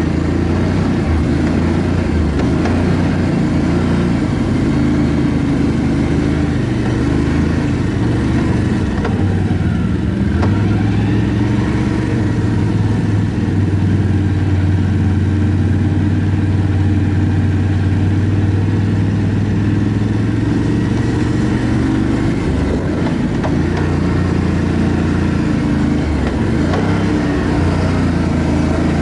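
ATV engine running under way, its pitch shifting up and down with the throttle.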